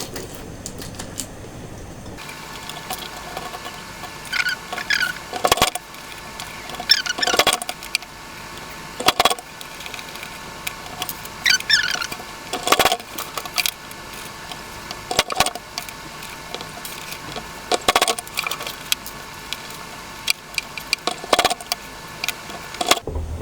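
Metal press buttons (snap fasteners) being handled and pressed onto fabric: sharp clicks and taps every two to three seconds, some with a brief metallic jingle. A faint steady hum comes in about two seconds in.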